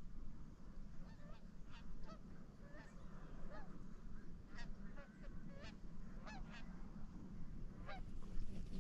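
Geese honking: many short, scattered calls throughout, over a low steady rumble.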